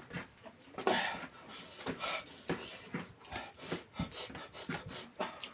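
Close-miked chewing and wet mouth sounds of someone eating chicken curry with rice: a run of irregular smacks and clicks, several a second.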